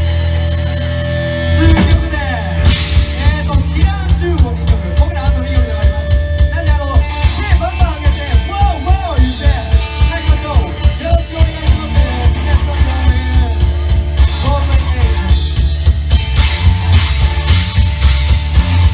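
Rock band playing loud. A sustained chord rings for the first couple of seconds, then the drum kit comes in with a steady driving beat, about two to three hits a second, under guitars and a bending melodic line.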